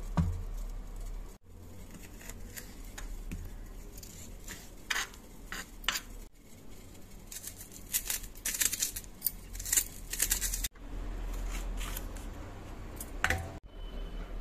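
Kitchen preparation sounds: many short, crisp clicks and scrapes of a knife and utensils handling vegetables, over a low hum. The sound changes abruptly several times, as at cuts between short clips.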